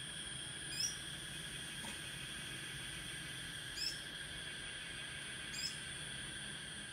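Steady, high drone of a forest insect chorus, with three short, high chirps about a second, four seconds and five and a half seconds in.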